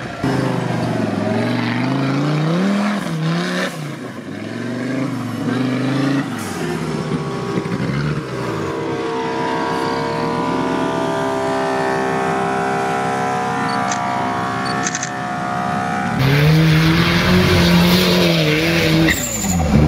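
Off-road trial 4x4 engines revving up and down as they labour up a steep slope, then held at steady revs for several seconds. About three-quarters of the way in, another vehicle's engine comes in suddenly and louder, still revving up and down.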